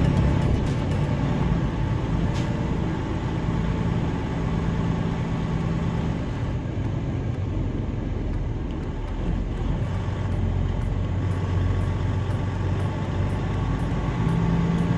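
Truck engine running with a steady low hum.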